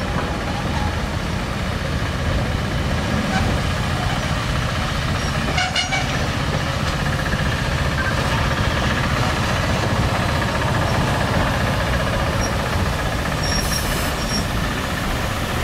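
Steady rumble and clatter of a steam-hauled passenger train rolling past on the rails, 3801's carriages and then its tender going by.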